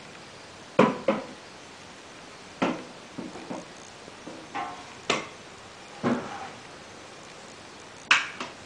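A child's string mop and its long handle knocking and slapping against a hard floor: sharp clacks at irregular intervals, some in quick pairs, with softer taps between.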